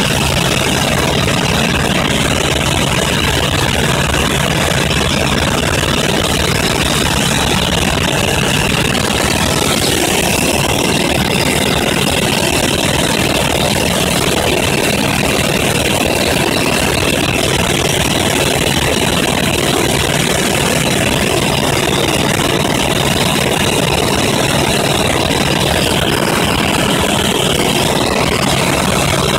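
Helicopter engine and rotor noise heard from inside the cabin in flight: a loud, steady drone with a constant low hum and a steady high whine over it.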